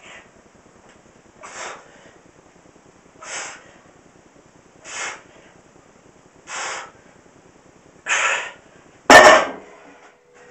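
Forceful breaths, one with each rep of a set of heavy bent-over barbell rows, about every second and a half, six in all. About nine seconds in, the loaded barbell is set down hard on the wooden floor with a loud clang that rings on briefly.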